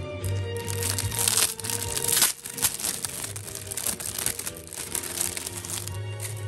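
Cellophane wrap crinkling and crackling as it is handled and pulled off a sealed card folder, loudest about one to two seconds in, over steady background music.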